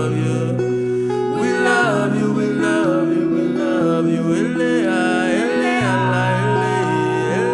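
Slow worship music: long held chords underneath a voice singing wordless, gliding melodic lines.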